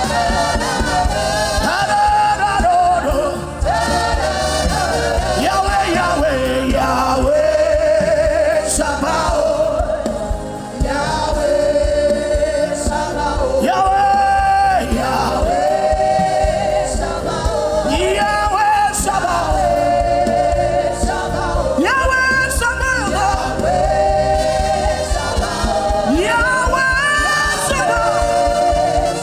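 Gospel chant music: sustained, melodic singing over a steady low accompaniment.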